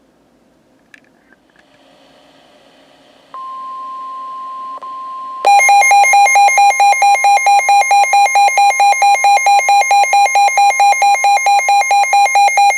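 NOAA Weather Radio warning alarm: a steady single-pitched tone starts a few seconds in. About two seconds later the Midland WR120B receiver's own loud alert alarm joins it, beeping in rapid pulses about five times a second, the signal that a new severe thunderstorm warning has been received.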